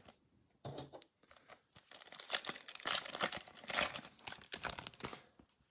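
Foil wrapper of a Topps baseball card pack being torn open and crinkled by hand, a run of crackling tears starting about two seconds in.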